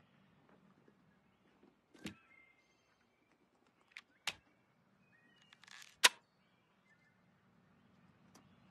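Sharp metallic clicks from a side-by-side double-barrelled shotgun's action being worked by hand. There is one click about two seconds in, two close together around four seconds, and the loudest snap about six seconds in, just after a brief rustle.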